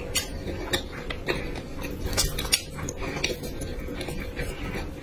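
Eating utensils clicking and scraping against a dish in a run of short, sharp clicks while food is being eaten.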